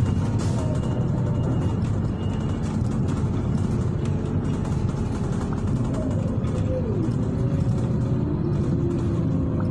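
City bus running, heard from inside the passenger cabin: a steady low engine and road rumble with a faint whine that shifts in pitch a few seconds in.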